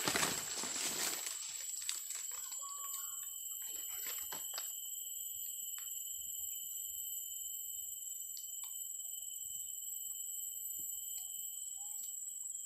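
Steady high-pitched insect chorus with several overlapping pitches. Rustling of leaves and twigs in the first two seconds, and a few light clicks and taps around four seconds in.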